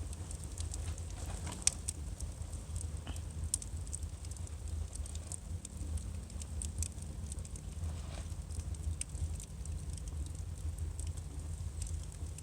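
Firewood burning, with irregular sharp crackles and pops over a low steady rumble.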